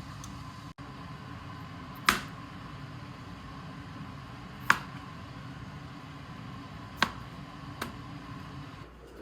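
Steady low hum broken by four sharp knocks a couple of seconds apart; the hum stops near the end.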